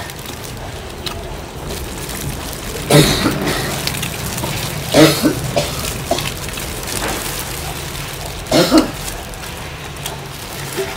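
People eating coconut-braised chicken thighs, with three short, loud throat noises about three, five and eight and a half seconds in.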